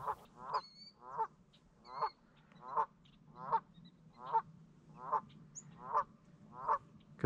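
A Canada goose honking over and over, about ten calls at an even pace of a little more than one a second.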